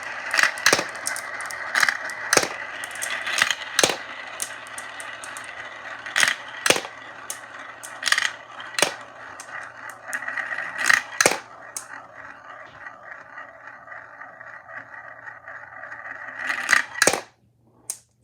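Balls rolling along a marble-run track: a steady rolling rattle broken by sharp clacks as they drop onto and knock against the track pieces. The rolling stops suddenly near the end, leaving a few faint clicks, with a low steady hum underneath.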